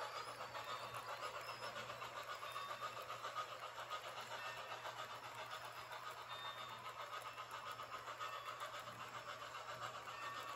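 HO scale model freight train of loaded coal hoppers rolling past on the track: a faint, steady rattle of small metal wheels on the rails, wavering a few times a second.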